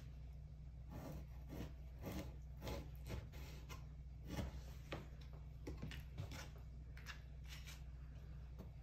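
Knife slicing through frozen muktuk (whale skin and blubber) on cardboard: a string of faint, irregular scraping cuts, about one or two a second, over a steady low hum.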